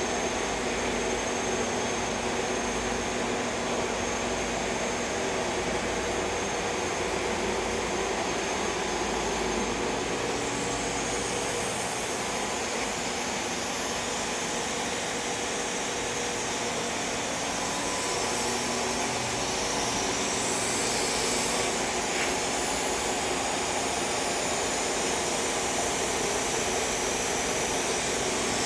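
Hardinge VMC800II vertical machining center running under power, a steady machine whir with held tones; the high hiss changes about ten seconds in and again near twenty.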